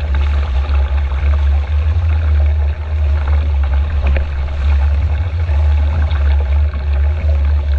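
Heavy wind buffeting on the microphone, with water rushing and splashing along an RS Feva dinghy's hull as it sails downwind in a strong breeze.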